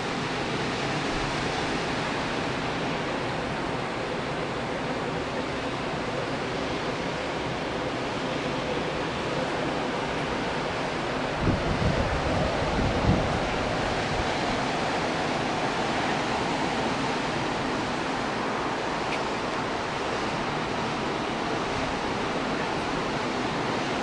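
Ocean surf breaking on a sandy beach, a steady wash of waves, with a few gusts of wind buffeting the microphone about halfway through.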